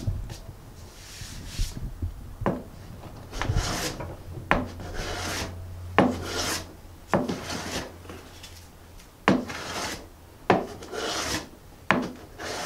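Low-angle hand plane cutting curly quilted maple drawer fronts: about nine strokes, roughly one a second, each starting with a sharp knock and followed by the hissing swish of the shaving coming off.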